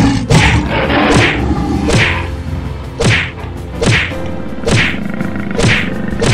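Stock fight sound effects for an animated animal brawl: about eight sharp swishing hits, roughly one a second, over faint steady background music.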